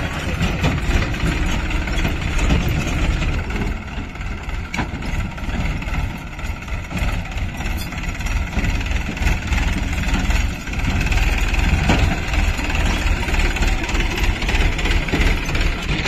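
Massey Ferguson 7250 DI tractor's diesel engine running with a low rumble as it pulls a trailer over rough dirt, a little quieter in the middle and louder again from about ten seconds in.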